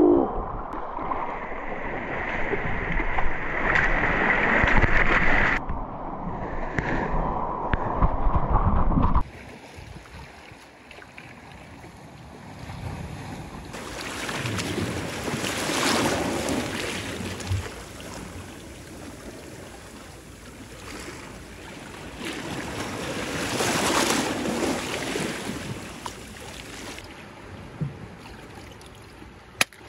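Seawater sloshing and splashing close over a snorkeler's camera, which cuts off suddenly about nine seconds in. After that come softer waves washing over a rocky shore, swelling twice and fading.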